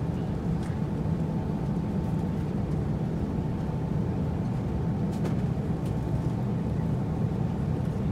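Steady low rumble of an Airbus A350-900's cabin with the aircraft under way, from its engines and airflow, with a faint steady hum above it and a few faint clicks.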